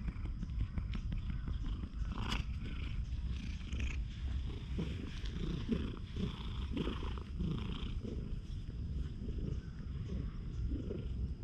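Brown tabby cat purring steadily, close up, while being stroked.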